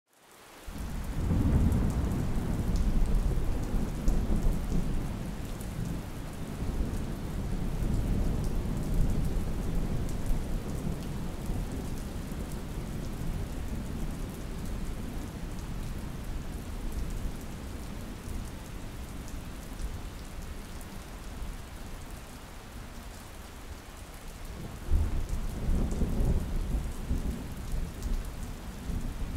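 Thunder rolling over steady rain: a long deep rumble builds in the first second and dies away slowly over the next twenty seconds. A second, sudden clap comes about 25 seconds in and rumbles on, with the hiss of rain all through.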